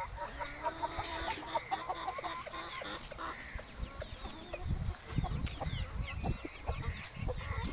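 Aseel chickens clucking in short, quickly repeated notes, with higher short chirps mixed in. From about halfway, low rumbling bumps come in under the calls.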